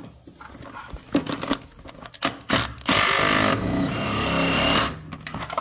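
A few clicks and knocks of tools being handled, then, about three seconds in, a cordless power tool runs steadily for about two seconds, driving a socket on a long extension to undo a transmission-mount bolt.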